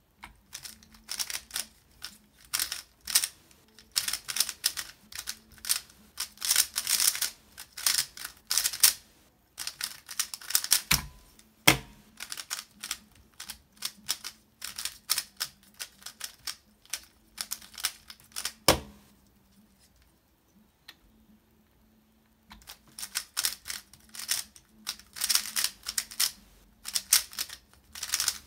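YuXin Little Magic 3x3 speedcube being turned fast, its plastic layers clicking and clattering in rapid bursts, with a pause of about three seconds about two-thirds of the way through. A few sharper knocks stand out near the middle.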